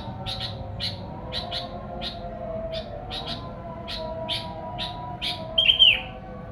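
Sooty-headed bulbul calling: short chirps repeating about three times a second, with one louder, curving call near the end.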